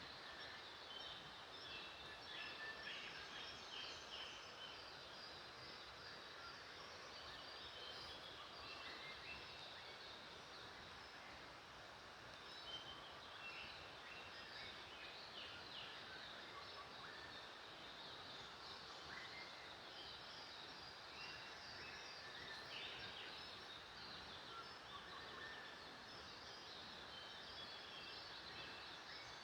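Faint outdoor ambience: many birds chirping and calling in short, scattered notes over steady background noise.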